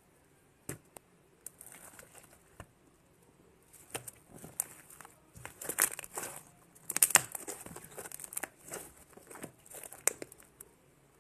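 Fluffy slime made of glue, borax and shaving foam being squeezed and pulled by hand, giving irregular clicking and crackling, loudest a little past the middle.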